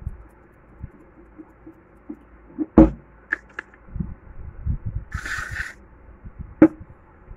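Sponge dabbing paint onto a glass bottle: soft repeated patting, with a few sharp knocks as the glass bottle is handled, the loudest about three seconds in, and a short scraping rustle about five seconds in.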